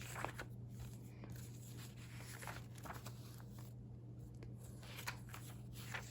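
Faint rustling of paper pages and a booklet being handled, a few soft strokes spread out, over a steady low hum.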